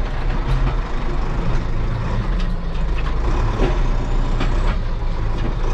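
Zetor tractor's diesel engine running steadily under load as it hauls a loaded manure trailer out of mud, with scattered light clicks and rattles.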